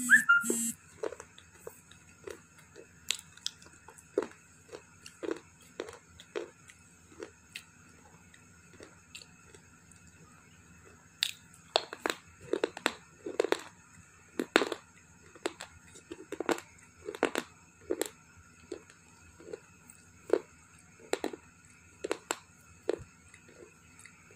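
Someone biting and chewing pieces of slate stone: a loud bite in the first second, then a long run of crisp crunches about one or two a second, thinning out for a few seconds in the middle.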